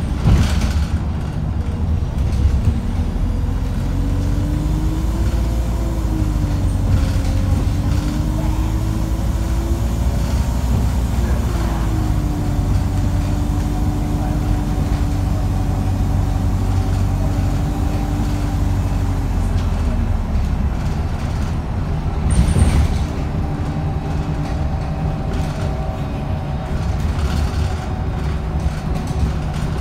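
Alexander Dennis Enviro350H bus engine and drivetrain running under way, heard from inside the cabin: a steady low rumble with a whine that rises and falls as the bus gathers and loses speed. The engine is one the uploader calls unhealthy. A brief louder burst of noise comes about 22 seconds in.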